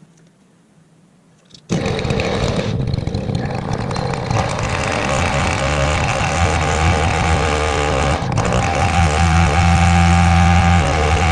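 A 105cc Stihl 070 clone two-stroke chainsaw on an Alaskan chainsaw mill, running hard and ripping through a pine log. After a quiet start it comes in abruptly nearly two seconds in, and its pitch shifts a little as the load on the bar changes.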